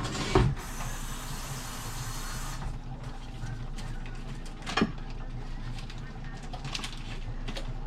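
Kitchen handling sounds: a knock, then a hiss lasting about two seconds, and another sharp knock a little before halfway, over a steady low hum.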